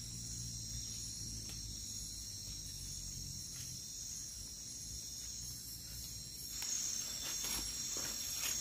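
A steady high-pitched chorus of night insects. From about two-thirds of the way in, crunching footsteps and leaves and undergrowth rustling close by join it and become the loudest sound.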